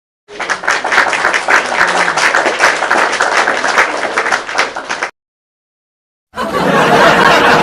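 Applause sound effect: a crowd clapping for about five seconds, cut off abruptly. After a second of silence, a crowd cheering sound effect starts.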